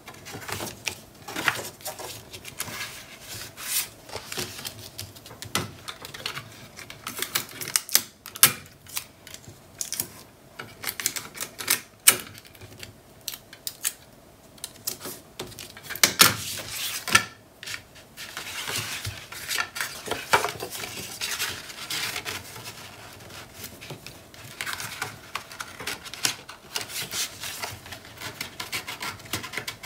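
Cardstock and paper being handled, slid and pressed down on a cutting mat: irregular rustles, sharp clicks and taps, with adhesive tape pulled from a handheld dispenser.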